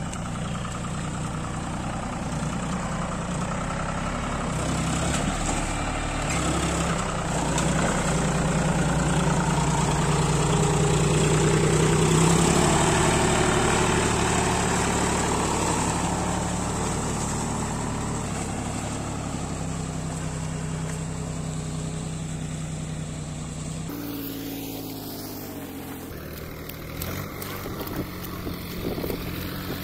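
Farm tractor's diesel engine running steadily as it works a flooded paddy field on iron cage wheels, growing louder towards the middle as it comes close. About 24 s in the sound changes abruptly and the engine note slides down.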